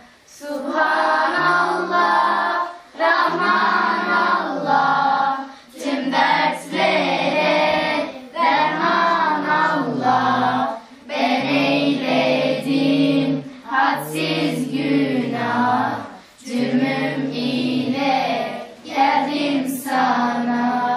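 A group of children singing an ilahi, a Turkish Islamic hymn, together in phrases of a second or two, with short pauses between them.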